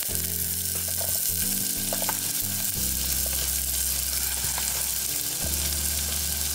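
Chopped onion and celery sizzling in melted butter in a stainless steel pot over low heat: a steady frying hiss with a few light clicks.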